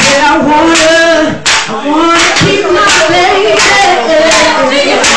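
A woman singing loudly into a corded microphone, with hand claps along with her.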